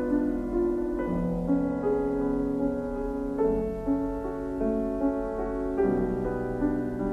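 Background music laid over the footage: a slow line of held, pitched notes, with a new note or chord about every half second.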